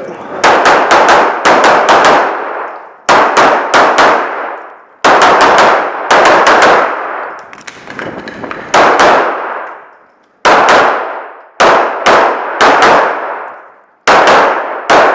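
Glock 34 9mm pistol fired in quick strings of two to four shots with short pauses between strings, a long echo trailing off after each string.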